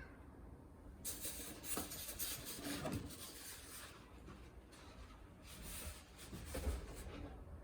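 Faint rustling and rubbing of packaging being handled as a model locomotive is unpacked, with a few light knocks.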